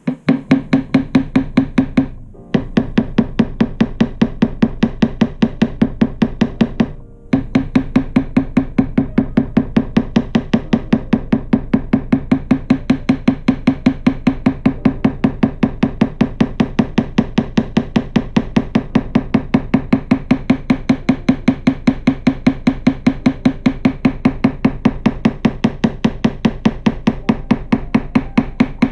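Quick, even back-and-forth strokes of a hand tool worked on a guitar neck's fretboard, several strokes a second, each with a short ring from the neck. The strokes break off for a moment twice, about two and seven seconds in.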